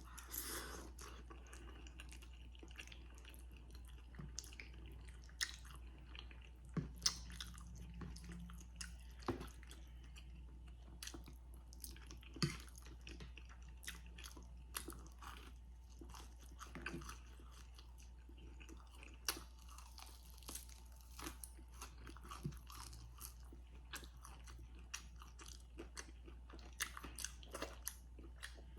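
A person chewing and biting food, with scattered soft crunches and mouth clicks over a steady low hum.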